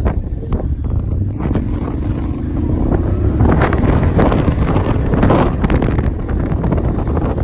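Strong wind buffeting the microphone: a steady low rumble with gusty rushing that grows louder about three seconds in.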